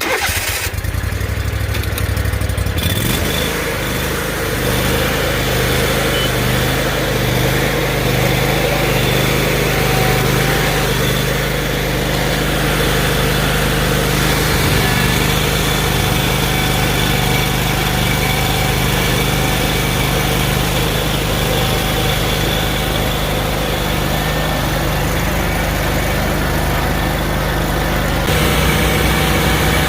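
Riding lawn mower engine running steadily while mowing. Its sound shifts about three seconds in and again near the end.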